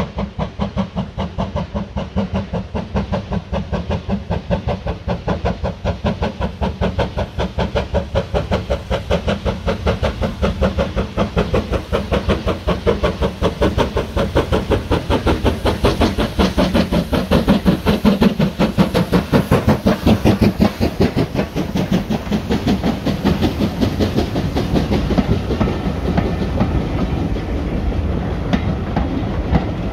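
USATC S160 2-8-0 steam locomotive working hard up a gradient, its chimney exhaust beating in a fast, even rhythm that grows louder as it draws close. Near the end the beats give way to the steadier run of the coaches rolling past.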